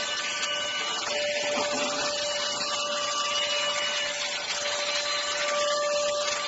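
Cordless vacuum cleaner running: a steady rush of air with a constant motor whine, the whine dropping out for a moment about a second in.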